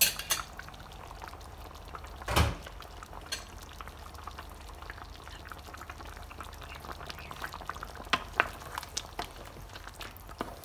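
Chicken curry in coconut-milk broth simmering in a pan, a steady bubbling with many small pops. A few clatters and knocks sound over it, the loudest about two seconds in.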